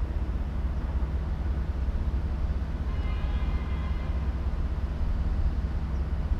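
Outdoor harbour ambience: a steady low rumble, with a faint pitched tone about three seconds in that lasts about a second.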